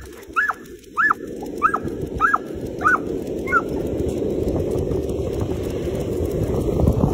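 A dog giving a string of short high whining yelps, about one every half second, that stop about three and a half seconds in. Under them a rush of running footsteps and wind noise builds steadily as the dog sets off pulling on its leash.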